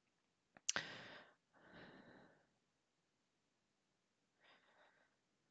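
A man's short sigh about a second in, then a softer breath, with near silence for the rest.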